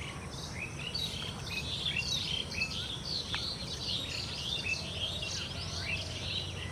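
A flock of small birds chirping, many short high calls overlapping into a continuous chatter, over a low steady rumble.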